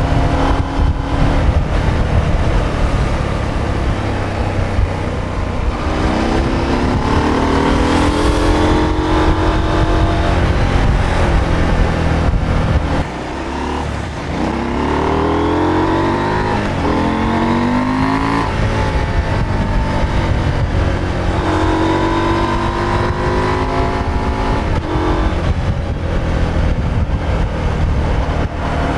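KTM 890 Adventure's stock 889 cc parallel-twin engine under way, accelerating through the gears: its note climbs in pitch several times and drops at each gear change. It goes briefly quieter about halfway through as the throttle closes.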